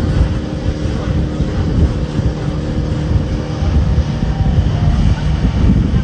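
Speedboat running fast on open sea: a steady engine drone under heavy wind buffeting on the microphone and the rush of water along the hull.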